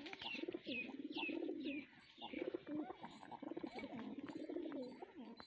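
Male domestic pigeons cooing, several low rolling coos one after another through most of the stretch.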